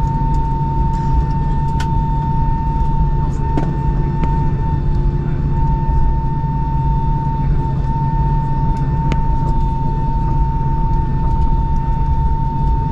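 Airbus A319 cabin noise while taxiing, heard by the window over the wing: the jet engines at idle give a steady low rumble with one steady high whine over it.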